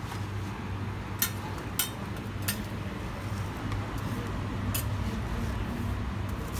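A few sharp metal clinks, four spread over several seconds, from a roti vendor's flat metal spatulas and cleaver knocking on the griddle and counter as a roti is lifted off and cut, over a steady low hum.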